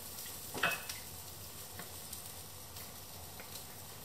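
Chopped asparagus sizzling in butter in a frying pan on a gas hob: a steady, soft frying hiss. A single light clink sounds less than a second in.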